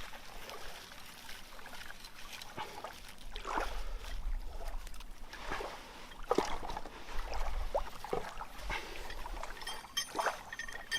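Knife scraping in short, irregular strokes on pine while a fire is being started from shavings, over a low rumble.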